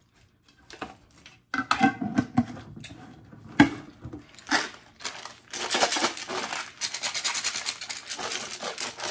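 Loose candies clicking and rattling against each other in a candy jar as the jar is shaken to settle them. A few separate knocks come first, then a dense continuous rattle over the last three or four seconds.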